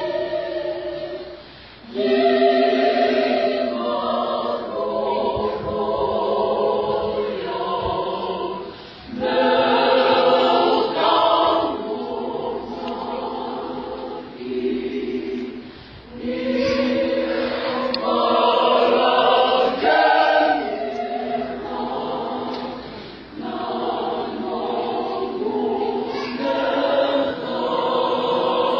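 Mixed youth church choir of boys and girls singing a hymn a cappella in harmony. The singing comes in long held phrases, with brief breaks between them every seven seconds or so.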